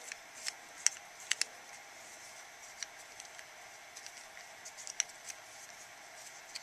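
Small screwdriver clicking and scraping against the float-lever screw and body of a Zama chainsaw carburetor as the screw is backed out and lifted away. It makes a handful of sharp, light clicks, the loudest about a second in, two more just after, and another near five seconds.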